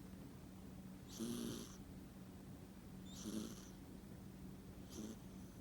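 Domestic cat snoring in its sleep: three short, rhythmic snores about two seconds apart.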